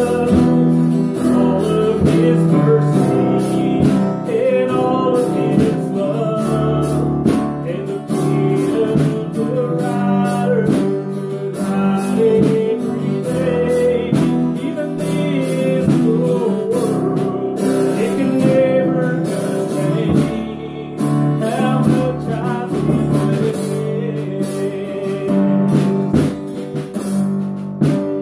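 Small band playing a gospel song: acoustic guitar strummed along with keyboard and drums.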